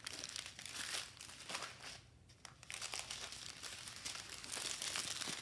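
Small sealed plastic bags of diamond-painting drills crinkling and crackling as they are handled and laid down, with a short lull about two seconds in.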